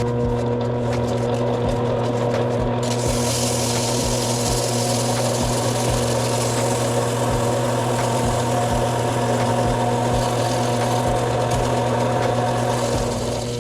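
Lathe motor running with a steady hum, and from about three seconds in the hiss of abrasive paper sanding rust from the inside of a cam-action grinder dog spinning in the chuck. Both stop near the end as the lathe is switched off.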